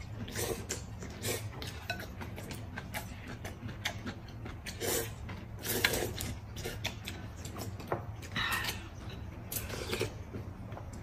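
Two people slurping noodles from bowls of broth and chewing, with chopsticks clicking against porcelain bowls. The slurps and clicks come irregularly, a few a second.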